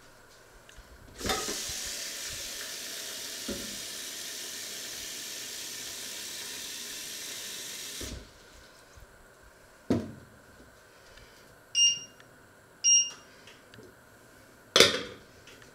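Kitchen tap running water into a mug for about seven seconds, then shut off. Afterwards a knock, two short beeps, and a loud clink as a small glass lid is set on the mug.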